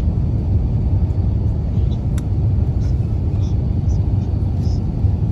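Steady low rumble of engine and airflow noise inside the cabin of an Airbus A350-900 with Rolls-Royce Trent XWB engines, flying low on approach.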